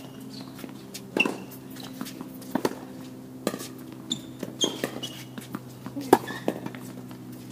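Tennis balls struck by rackets and bouncing on the court during a rally: sharp knocks every second or so, some much louder than others, over a steady low hum.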